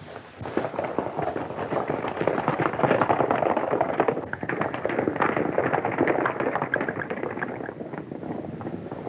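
Hoofbeats of several horses galloping off on packed dirt, a dense clatter that builds to its loudest in the middle and then fades.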